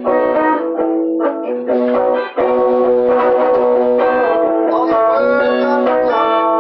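Live guitar music: acoustic and electric guitars playing together over steady held chords from a keyboard, with a short drop in level a little past two seconds in.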